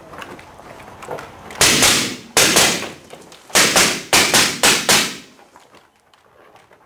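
Suppressed Mk12 rifle in 5.56 mm firing seven shots, each a sharp report with a short tail. The shots start about a second and a half in, and the last four come in quick succession.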